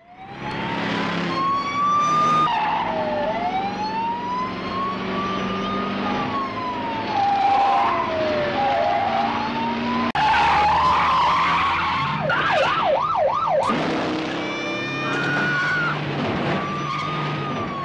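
Police car sirens wailing, several overlapping, each rising and falling in pitch, over the running engines of cars in a chase. About three-quarters of the way through, one siren switches briefly to a fast warble of about four cycles a second.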